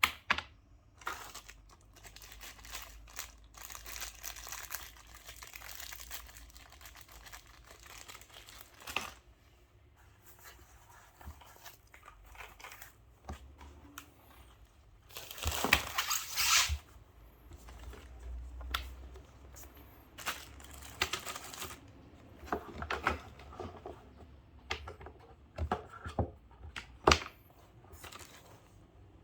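Plastic packaging being handled and unwrapped, crinkling and rustling irregularly, with a louder burst of crinkling about halfway through and a few sharp clicks near the end.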